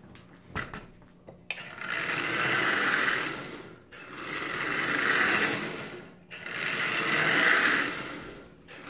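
Marx 999 toy steam locomotive's electric motor whirring and its wheels rattling on three-rail track, swelling and fading in waves about every two and a half seconds, with a few clicks before the running sound picks up about a second and a half in. The long-unused, freshly oiled motor is running fairly well.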